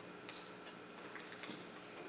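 Quiet room tone with a few faint, scattered clicks and ticks, the clearest about a third of a second in.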